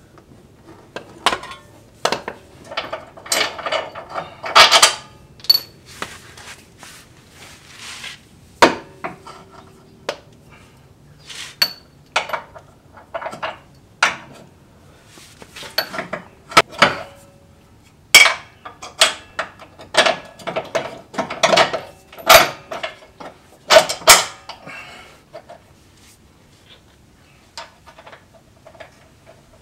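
Irregular metal clanks, clicks and knocks, some ringing briefly, as a Jeep Wrangler JL's Metalcloak lower control arm and its mounting bolts are worked into the frame brackets. It goes quieter near the end.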